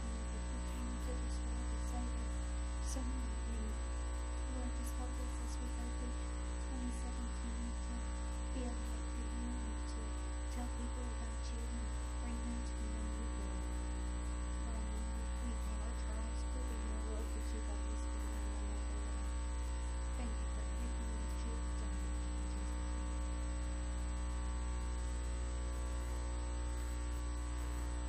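Steady electrical mains hum, a low buzz made of many even tones that does not change. Faint, indistinct voices come and go beneath it in the first half.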